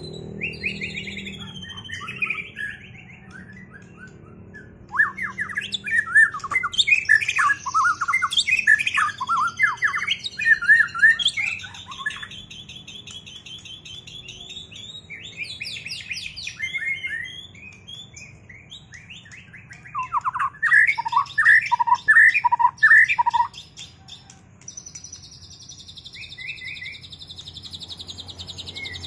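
White-rumped shama singing: loud, varied whistled phrases broken by fast chattering runs, ending in a long, high, buzzy trill.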